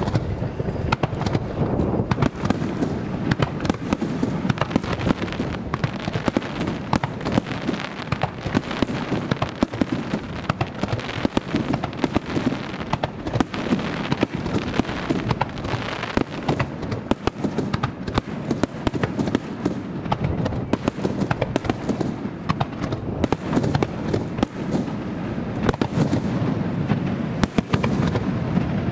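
Fireworks going off in a dense, continuous barrage, sharp bangs and crackles overlapping many times a second over a low rumble of booms.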